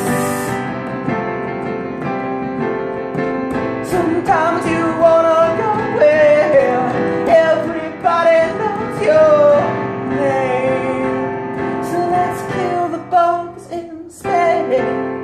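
A man singing along to his own playing on a digital piano, a slow ballad-style tune. The playing breaks off briefly near the end, then starts again.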